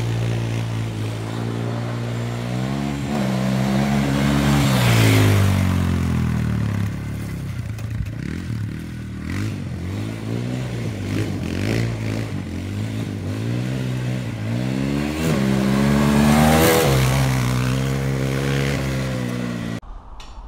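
Yamaha Raptor 250 ATV's single-cylinder four-stroke engine revving up and easing off as the quad spins donuts on a dirt road, with loose gravel and dirt spraying from the rear tyres. The revs climb to two high peaks, about a quarter of the way in and again about three quarters through.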